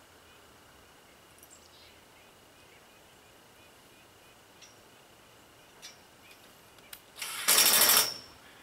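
A few faint metal clicks, then near the end a power drill driving a screw to fasten a clamp on the steel pipe frame: one loud rattling burst lasting under a second.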